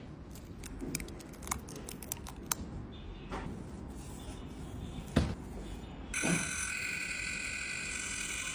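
Light clicks and taps of small tools on phone parts, with a sharper knock about five seconds in; then, about six seconds in, a small electric motor starts up and runs with a steady whir.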